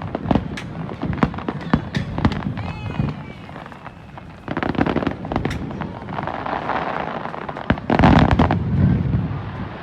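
Fireworks: a rapid crackling of sharp pops for the first few seconds, then a loud burst about four and a half seconds in, and the loudest burst about eight seconds in.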